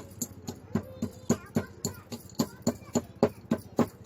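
Pestle pounding black peppercorns, cloves, chopped ginger and cumin in a mortar, in steady sharp knocks about three to four a second, crushing them coarsely.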